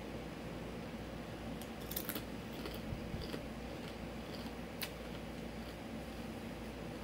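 Close-up chewing of a crunchy tortilla chip with salsa: a series of sharp, irregular crunches over a steady low room hum.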